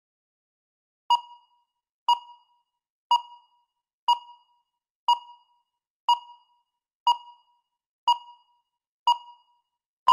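Electronic countdown timer beeping: nine identical short pings, one each second, and a longer steady beep starting right at the end.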